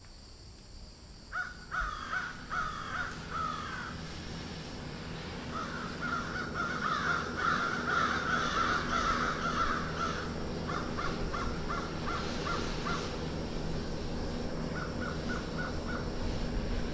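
Birds giving harsh calls in repeated series: a few calls about a second in, a long dense run in the middle, then quicker strings of short notes near the end, over a steady low hum.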